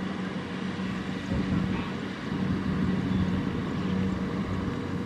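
Diesel engines of a Kubota RT120 power tiller and a Kubota M6040SU tractor running, a steady low hum that gets a little louder about halfway through.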